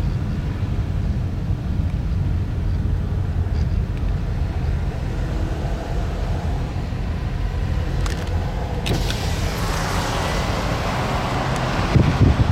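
Motor vehicle driving: a steady low engine and road rumble, with a hiss that swells in over the last few seconds.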